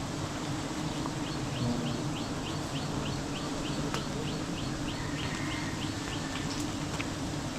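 Steady low buzzing of a swarm of wild honeybees. Over it, a bird calls a quick series of short rising chirps, about five a second, for roughly three seconds starting about a second in.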